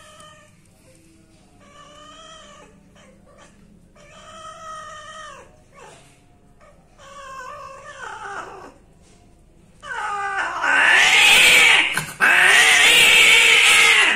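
Female cat yowling while being mated: a series of drawn-out calls, about every two seconds, growing louder, then two long loud screams over the last four seconds, the female's cry at the end of mating.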